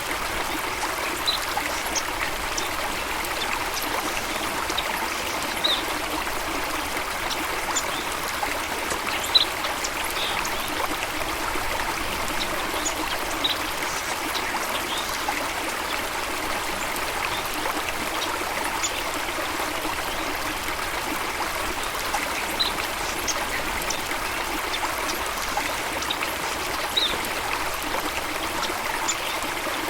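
Steady rush of flowing water, like a stream or small waterfall, with short high-pitched blips scattered through it every second or two.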